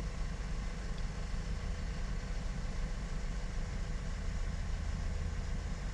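A car engine idling: a steady low hum with a faint steady tone above it.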